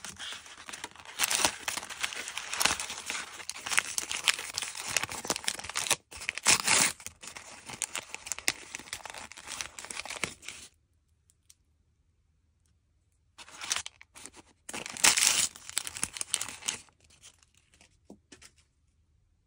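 Crinkly plastic toy-packaging pouches being handled and torn open: dense crinkling and ripping for about ten seconds, a pause, then two shorter bursts of crinkling.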